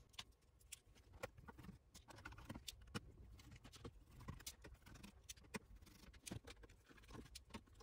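Faint, scattered small clicks and taps of a precision hex screwdriver and fingers working the tiny Allen screws that hold the gimbal assembly in a DJI Phantom 4's plastic body.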